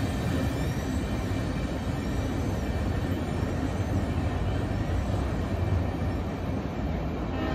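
Freight train of tank cars rolling away along the tracks: a steady low rumble of wheels on rail.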